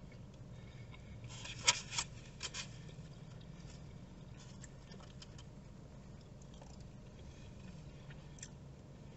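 A person eating crinkle-cut fries: a few sharp handling clicks and scrapes about two seconds in, then faint chewing over a low steady hum.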